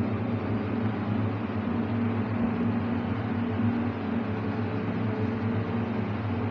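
Steady machine hum: a low drone with an even hiss over it, unchanging throughout.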